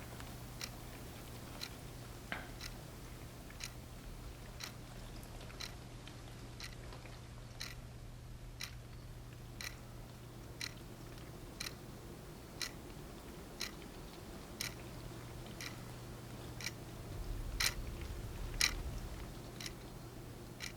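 Faint, even ticking, about one tick a second, like a clock, over a low steady hum, with a slight low rumble near the end.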